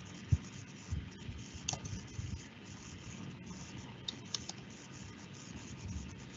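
A few faint clicks from a computer keyboard and mouse, with soft low knocks in the first couple of seconds, over a steady background hiss.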